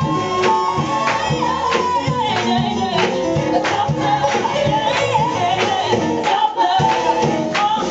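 Upbeat pop music with a singing voice over a steady beat.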